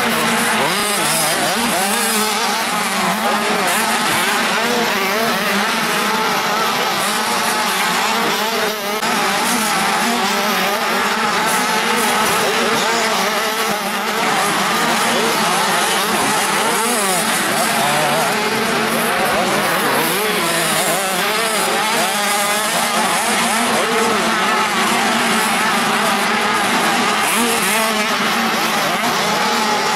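Several motocross dirt bikes racing at once, their engines revving up and down over one another in a continuous din.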